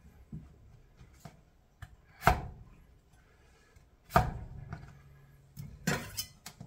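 Kitchen knife chopping potatoes against a cutting board: a few separate knocks, the two loudest about two seconds apart, then a quick run of several strikes near the end.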